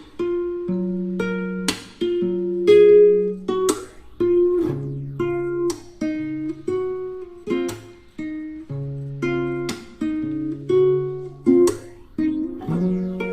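Instrumental guitar music: plucked notes and chords, each ringing on until the next, over a slowly changing low bass line.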